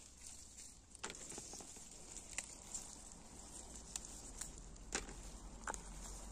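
Faint rustling of garden plants and dry ground with scattered light clicks and snaps, from someone moving through a pepper patch.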